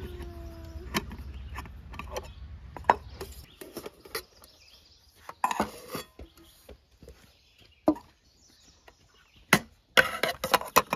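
Woods nesting camp cookware pots and lids clinking and knocking as they are lifted apart and set down on a table: a string of sharp clanks, busiest about five to six seconds in and near the end. A steady low hum fades out a few seconds in.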